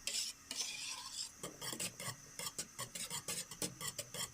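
Hand wire whisk stirring thickening milk-and-cornstarch cream in a pot, the wires scraping against the metal in quick, uneven strokes.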